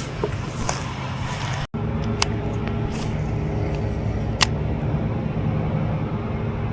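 A road vehicle's engine running with a steady low hum, with a few sharp clicks. The sound drops out for an instant under two seconds in, and after that the hum is steadier.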